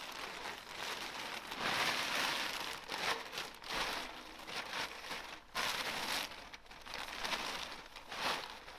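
Plastic sheeting crinkling and rustling as it is handled, in irregular rustles that are loudest about two seconds in.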